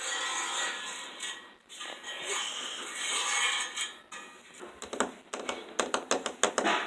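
A steady hiss, then from about four and a half seconds in a rapid run of sharp clicks and knocks.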